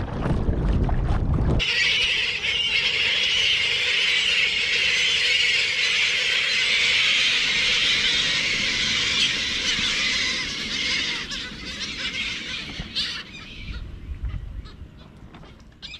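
Wind buffeting the microphone for the first second and a half, then a large flock of seagulls calling all at once, a dense mass of overlapping squawks that fades over the last few seconds.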